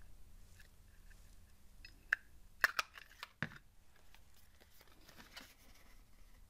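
Handheld circle punch snapping through a strip of patterned paper: a few sharp clicks about two to three and a half seconds in, the last one a duller knock.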